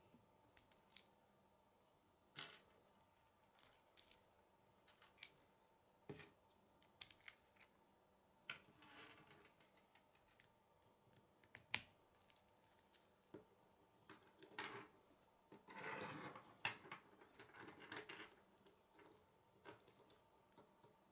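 Plastic K'nex rods and connectors clicking and snapping together as they are handled, as irregular sharp clicks with a few longer stretches of rustling plastic, the longest about three-quarters of the way through.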